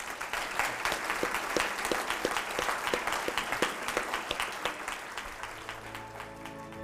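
Audience applause, a dense patter of many hands clapping that starts suddenly and thins out near the end as quiet music fades in.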